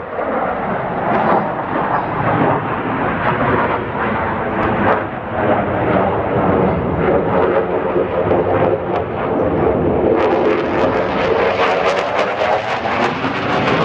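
Jet aircraft flying past overhead: loud, continuous engine noise with a sweeping, wavering tone as it passes.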